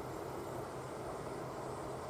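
Yamagata Railway YR-880 series diesel railcar approaching out of sight, heard faintly as a steady low engine hum and rail rumble.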